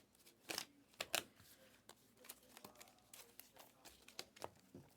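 Basketball trading cards being flipped through by hand: a scattered series of soft snaps, slides and crinkles, the sharpest about a second in.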